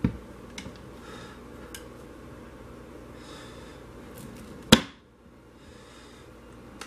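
Wooden wire soap cutter slicing a bar off a soap loaf: a few light knocks as the loaf is pushed into place, then one sharp clack about two-thirds of the way in as the cutter arm comes down through the soap.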